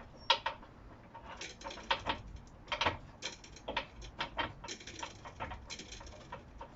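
Irregular sharp metallic clicks and taps of bolts and hand tools being handled while a subframe bolt is fetched and fitted.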